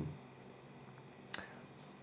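Quiet room tone with a single short click about a second and a half in.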